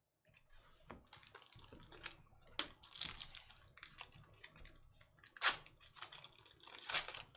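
Trading cards being handled and flipped through: a quick run of clicks, snaps and rustles, with sharper snaps about two and a half, five and a half and seven seconds in.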